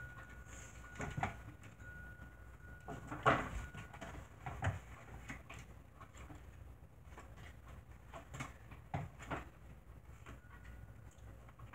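Playing cards being handled and laid down one by one onto a table: soft, irregular taps and slides, the sharpest about three seconds in.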